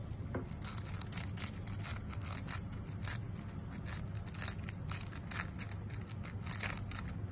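Two hamsters nibbling pink wafer chocolates: a quick, uneven run of small dry crunches over a steady low hum.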